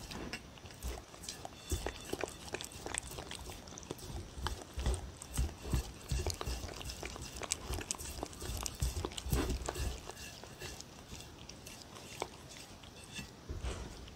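A puppy licking a ceramic plate clean: irregular wet tongue laps, with small clicks of tongue and teeth against the plate.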